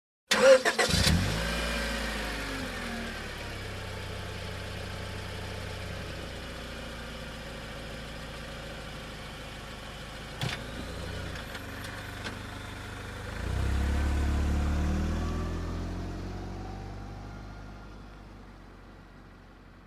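Car engine starting with a sudden burst, then idling steadily; a single click comes about halfway through, and the engine is briefly revved, its pitch rising and falling back, before the sound fades away near the end.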